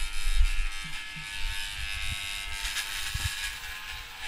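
Electric dog grooming clippers buzzing steadily as they cut through a man's hair.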